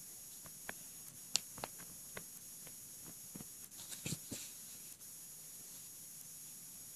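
Scattered light clicks and taps of a finger pressing the keypad buttons and touchscreen of a Samsung Galaxy Golden flip phone, with a quick cluster of several about four seconds in, over a steady hiss.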